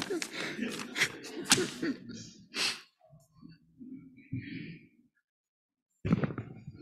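Paper rustling and breathy sounds close to a lectern microphone, dying away about three seconds in. About six seconds in, a sudden low rumble of handling noise as the gooseneck microphone is gripped and moved.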